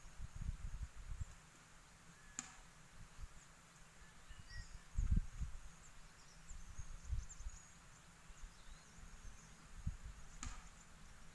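Outdoor ambience: gusts of low wind rumble on the microphone, loudest about halfway through. Faint high chirps of small birds or insects sound throughout, and there are two sharp clicks, one about two seconds in and one near the end.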